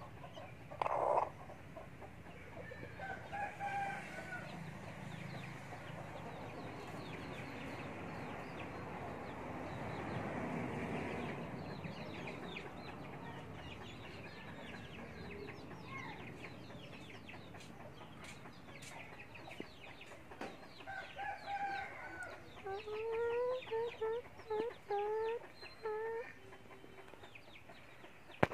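Wild chicken (red junglefowl) clucking and calling: one loud call about a second in, a few calls a couple of seconds later, then a quick run of about eight short rising calls near the end.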